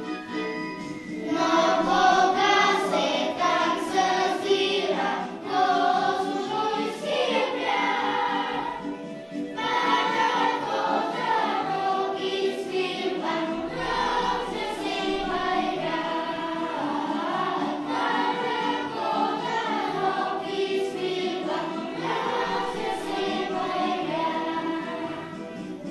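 A children's choir singing a song together over instrumental accompaniment, with a short break in the singing about nine seconds in.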